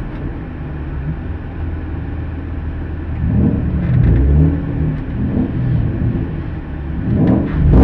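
Car engine idling, heard from inside a BMW E36's cabin. From about three seconds in, a few throttle blips rise and fall in pitch, and the revs climb again near the end.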